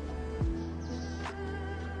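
Background music: a calm electronic track of sustained synth tones, with a deep kick-drum hit that drops in pitch about half a second in.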